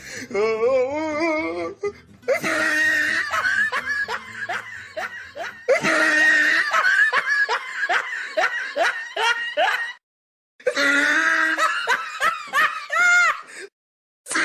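Loud laughter in runs of quick ha-ha pulses, cut by two short silent gaps in the second half.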